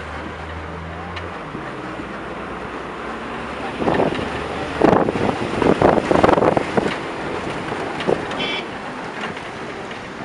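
Wind buffeting the microphone, with loud irregular gusts in the middle; a low vehicle engine hum is heard at first and stops about a second in.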